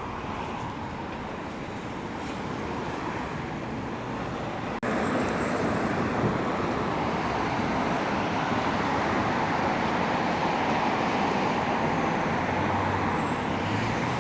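Steady, unpatterned background noise with no clear single source; it cuts abruptly about five seconds in and comes back louder.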